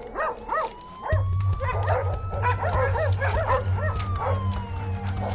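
Tracking dogs barking and yelping excitedly in rapid, overlapping calls. A steady low drone comes in about a second in.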